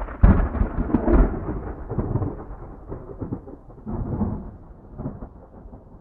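Thunder: two loud cracks in the first second or so, then a rolling rumble that swells again about four seconds in and slowly fades.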